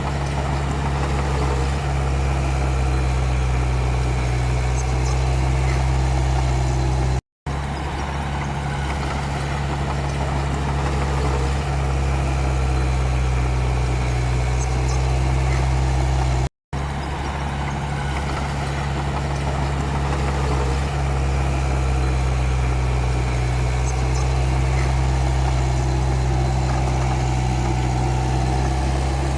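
Komatsu D31P bulldozer's diesel engine running at a steady, even speed with a deep hum. It drops out to silence twice for a split second, about seven and sixteen seconds in.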